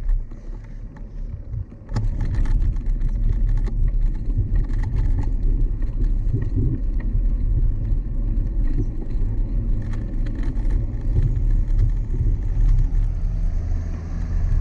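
Bicycle riding noise: a steady low rumble with many small rattling clicks, getting louder about two seconds in.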